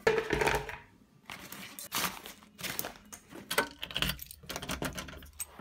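Rustling and clattering as things are handled, then a bunch of keys jangling as a key is turned in a door's deadbolt lock, in a string of small irregular clicks.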